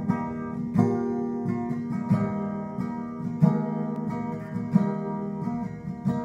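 Acoustic guitar with a capo, strummed chords ringing in a steady rhythm, with a heavier accented strum about every second and a half.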